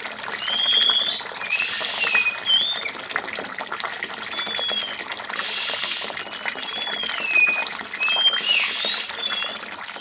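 An oriental magpie-robin bathing in a shallow water tray, splashing in three short bursts, over a steady trickle of water. Short sliding whistled bird notes sound again and again throughout.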